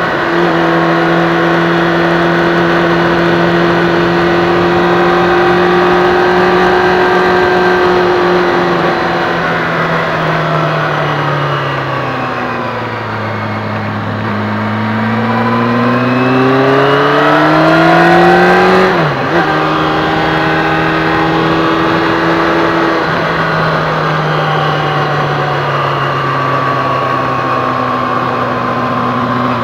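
Engine of a small vehicle heard onboard while it is driven around a short circuit. The engine note holds steady, then sinks about halfway through as the vehicle slows from about 42 to 30 km/h. It climbs again, drops suddenly about two-thirds of the way through, and rises once more near the end.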